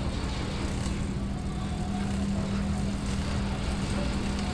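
An engine running steadily: a low rumble with a steady hum that holds one pitch.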